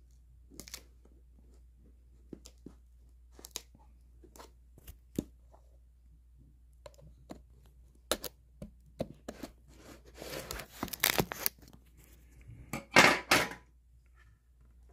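Hands handling a cardboard phone box with scattered light taps and clicks. Then come two stretches of tearing, about ten and thirteen seconds in, the second the loudest, as the seals on the Samsung Galaxy S22 Ultra box are torn open.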